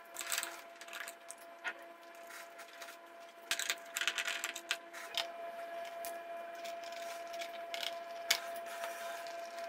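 A screwdriver working on a TV's plastic rear shell: scattered clicks, taps and short scrapes as a screw is undone and a plastic cover is pried at. A faint steady hum runs underneath.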